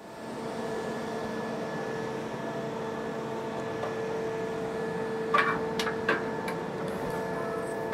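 Steady electrical hum of workshop machinery, with a few light metallic clicks and rattles from about five seconds in as the band saw blade is handled and fitted into the saw's guides.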